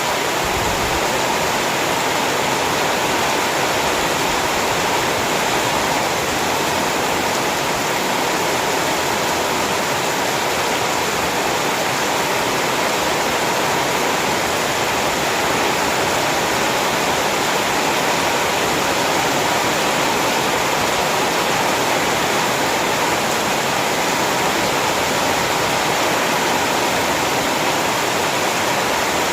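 Heavy rain falling steadily: a dense, even hiss with no single drops or gusts standing out.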